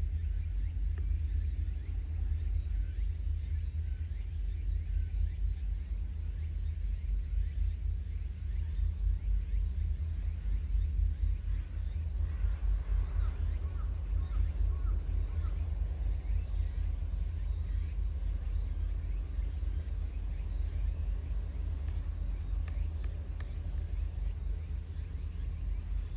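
Wind buffeting the microphone outdoors, a low, unsteady rumble, over a faint steady high-pitched trill typical of insects. About halfway through there is a brief run of small chirps.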